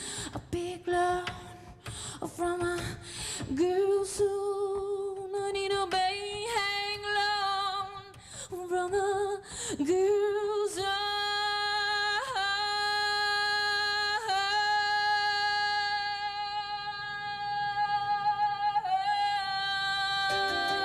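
A woman's solo voice singing unaccompanied: short melodic phrases at first, then long notes held for several seconds each.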